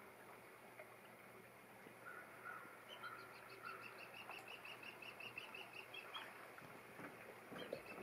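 Osprey calling: a faint series of short, high chirping whistles, about five a second, in two runs, the first starting about three seconds in and the second near the end.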